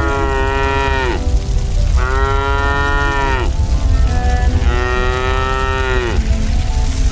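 A cow mooing: a long call already under way ends about a second in, followed by two more, each lasting about a second and a half and dropping in pitch at the end. A steady low rumble runs underneath.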